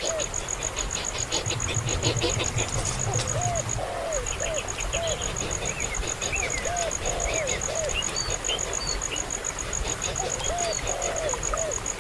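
Birds calling in short, repeated arched notes in small groups, with higher chirps, over a steady, fast-pulsing insect trill that breaks off briefly near the middle.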